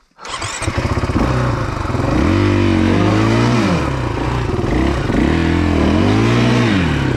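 KTM 500 EXC-F's single-cylinder four-stroke engine revved hard twice, pitch climbing and falling back each time. It is working to find traction, the bike stuck on a steep, slippery hill climb while the rider bounces it.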